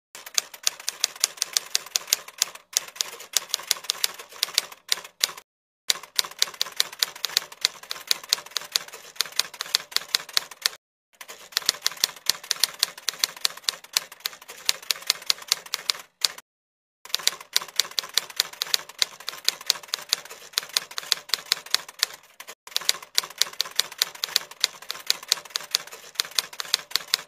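Typewriter typing sound effect: rapid, evenly spaced key clacks in five runs, each broken off by a brief pause.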